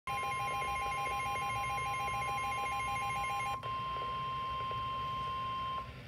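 Weather radio sounding the NOAA Weather Radio warning alarm tone, a steady high beep, through its small speaker. For about the first three and a half seconds a fast warbling electronic alert beep plays over it. The steady tone then carries on alone and stops just before the end, signalling that a warning message is about to be read.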